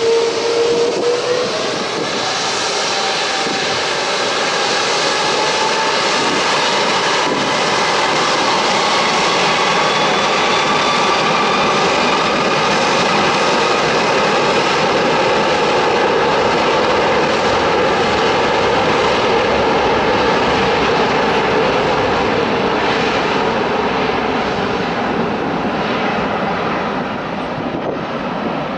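Airbus A330-200's two Rolls-Royce Trent 700 turbofans at take-off power as the airliner rolls down the runway: a loud jet roar with a whine that rises in pitch over the first ten seconds or so as the engines spool up, easing a little near the end as the aircraft moves away.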